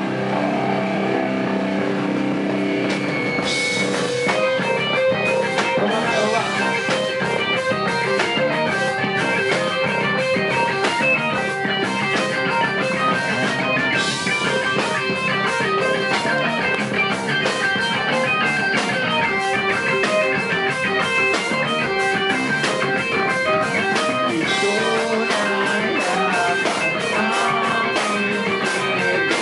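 Live nu-metal band playing: electric guitars, bass guitar and drum kit, with cymbals and drums filling in about four seconds in.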